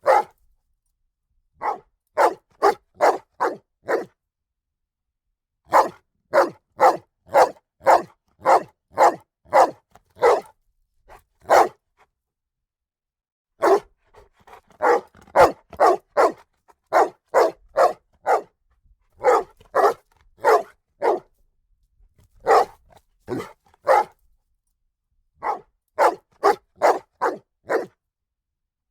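A dog barking loudly in quick runs of three to eight barks, about two or three a second, with short pauses between the runs.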